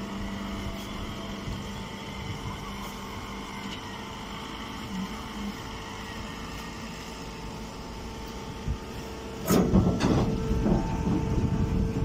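Vertical hydraulic hay baler's power unit running with a steady mechanical hum. About nine and a half seconds in, a louder spell of clattering and rustling starts and keeps on.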